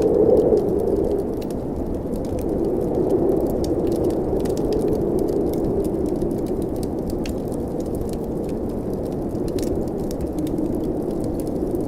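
Blizzard wind blowing as a steady low rushing that eases a little over the first couple of seconds, with a wood fire crackling in many small, sharp pops over it.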